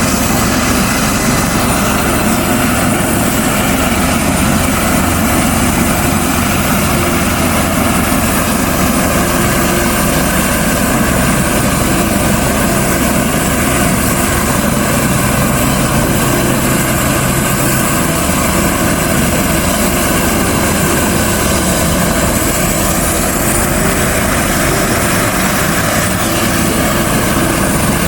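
Helicopter turbine and rotors running steadily: a loud, unbroken drone with steady whining tones over it.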